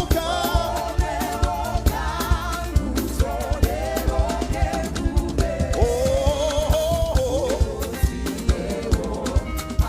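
Gospel praise music: a lead singer's held, sliding melody over a band with a steady drum beat and bass.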